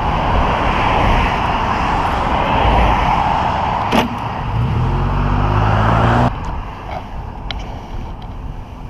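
Suzuki motorcycle engine running under a rush of wind and ground noise as the bike goes off the road into dirt. About four seconds in there is a knock, and the engine revs up briefly. About six seconds in the engine and the rush cut off suddenly as the bike comes down and stops, leaving a few small clicks.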